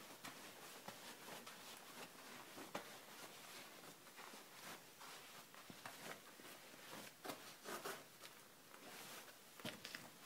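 Faint, irregular footsteps crunching and scuffing on sand and gravel, with a few louder steps in the second half.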